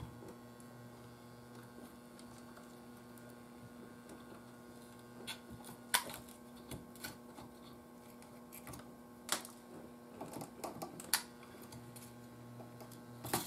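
Scattered light clicks and taps of small tools and parts being handled on a tube-radio chassis, starting about five seconds in, over a faint steady electrical hum.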